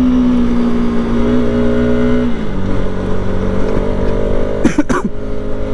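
Bajaj RS200's single-cylinder engine running under way at steady revs, which drop about two seconds in and hold at a lower, steady note.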